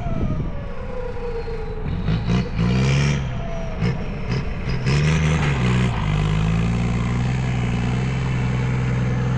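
Heavy vehicle engine revving in several short surges, then settling into a steady run about six seconds in. A thin high whine glides downward over the first couple of seconds.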